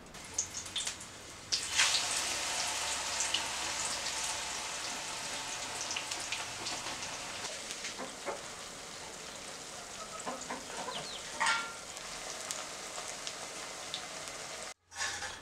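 Raw banana slices frying in hot oil in a black wok: the oil starts sizzling suddenly about a second and a half in and keeps up a steady sizzle, with scattered small pops.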